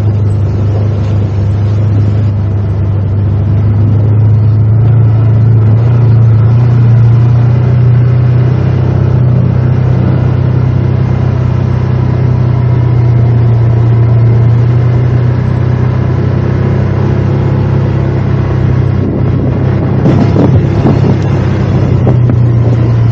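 ATV engine running at a steady speed while riding, a loud, even low drone with no break.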